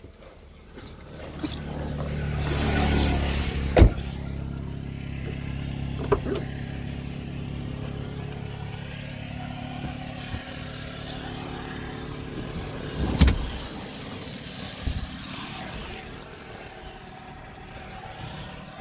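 Maruti Suzuki WagonR's 1.0-litre three-cylinder petrol engine idling steadily, with a few sharp knocks, the loudest about four seconds in.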